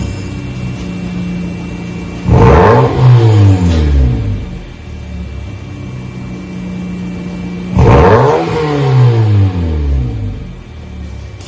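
Exhaust of a 2006 Hyundai Tiburon, with the rear mufflers deleted and a single-chamber mid muffler, idling and then revved twice, about two seconds in and again about eight seconds in. Each rev jumps up sharply and falls back to idle over a second or so.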